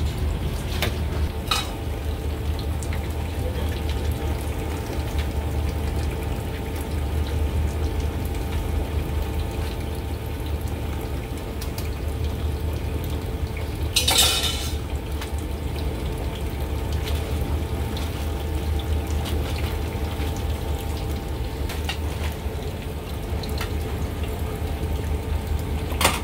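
Steady low rumble of a street-food kitchen at work over a large steaming pan of simmering beef broth, with light clinks of metal utensils and bowls. About halfway through comes a brief, louder clatter as a wire strainer basket is dipped into the pot.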